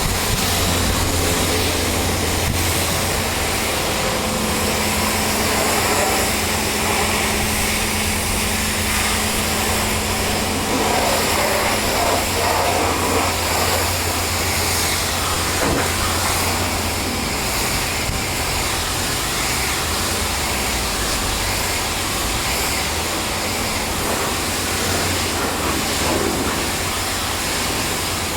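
Pressure washer running: the hiss of a high-pressure spray over a steady low machine hum, which drops away about two-thirds of the way through.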